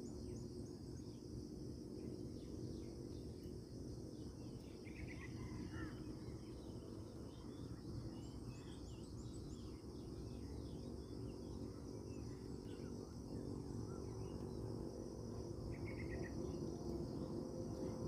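Steady high-pitched insect drone over a low background rumble, with a few short runs of bird chirps about five seconds in and again near the end.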